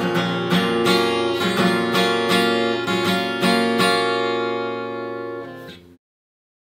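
Background song played on strummed acoustic guitar. The final chords ring out and fade, then the music cuts off about six seconds in.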